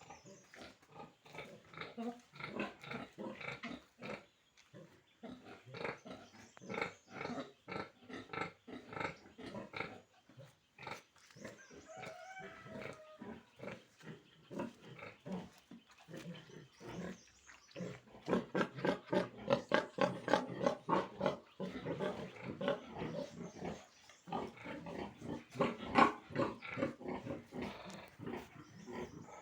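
Pigs grunting in quick, short, repeated calls, several animals at once. The calls are thickest about two-thirds of the way through, with one sharp, louder call near the end.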